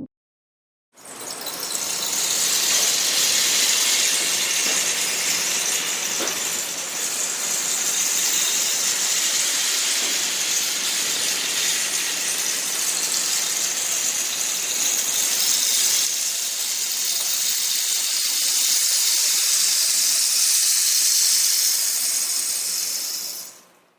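Cactus rainstick turned so its filling trickles down the tube in one long, steady rain-like hiss, starting about a second in and fading out near the end.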